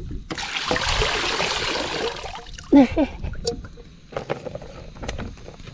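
Water pouring and splashing for about two seconds, then a short, loud pitched sound and a few light clicks and knocks.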